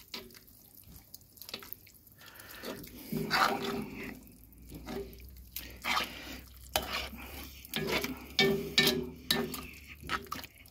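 Metal spoon stirring wet chili in a cast-iron kazan, with irregular scrapes and clinks against the pot's sides.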